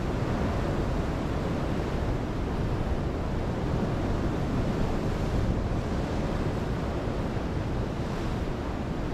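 Steady wash of North Sea surf breaking on a rocky shore, with wind rumbling on the microphone.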